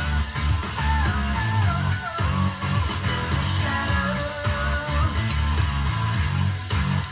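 Music with guitar and a steady bass line.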